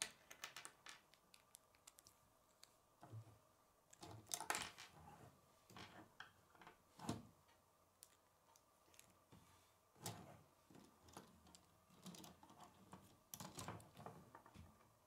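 Plastic K'nex pieces clicking and knocking as they are handled and snapped together: irregular small clicks throughout, with a few sharper knocks about four and a half, seven and ten seconds in.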